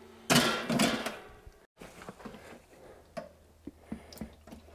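A large steel spherical roller bearing is set down on steel blocks in an empty stainless steel stockpot: a ringing metallic clank about a third of a second in and a second, lighter one just after. After a cut there are only faint scattered clicks as oil is poured into the pot.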